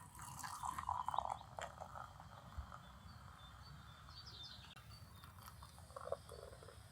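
Faint crunching and chewing of crisp breaded, pan-fried chicken cordon bleu in the first second or two, with a few short bird chirps in the background about halfway through.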